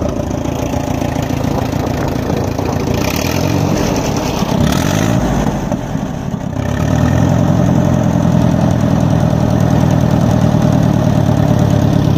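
A 1959 Allis-Chalmers D17's 63-horsepower, liquid-cooled four-cylinder gasoline engine running at idle. It dips briefly, then gets louder and steadier from about six and a half seconds in.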